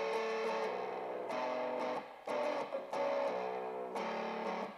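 Guitar strumming sustained chords that change every second or so, with a brief break about two seconds in and another near the end.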